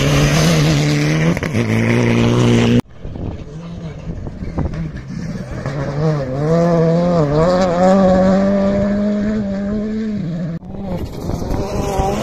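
Four-wheel-drive rally cars driven hard on a loose gravel stage, heard in three short clips that each cut off abruptly. The engines' revs rise and fall, then are held high, with a gear change in the first clip.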